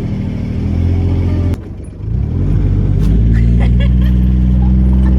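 Leyland 262 tractor's diesel engine running steadily; about a second and a half in the sound breaks off abruptly, then the engine rises in pitch as it is revved and settles into a louder, steady run as the tractor pulls away.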